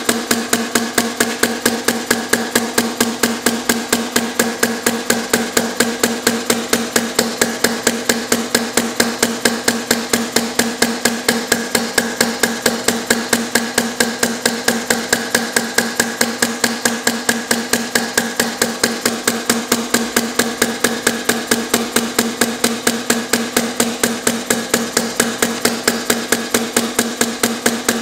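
Small inverted hit-and-miss model engine running on compressed air in straight four-stroke mode, making a steady, even rhythm of sharp metallic clicks about two a second.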